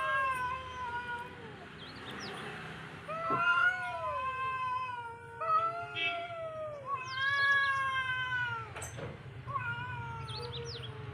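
Tabby cats yowling at each other in a standoff: long, wavering, drawn-out howls, about five of them, some overlapping. This is the threatening caterwaul of a territorial face-off.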